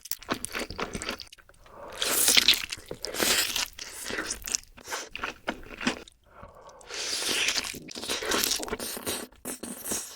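Close-miked bites and chewing of crispy fried chicken, the crust crunching loudly in bouts, strongest about two seconds in and again from about seven seconds.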